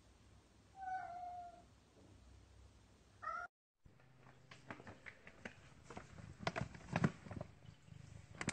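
A cat gives one short meow about a second in, then a brief second call just before three and a half seconds that is cut off. After that comes a run of crinkling, rustling clicks that grows louder, a cat rummaging in a plastic pet-food bag.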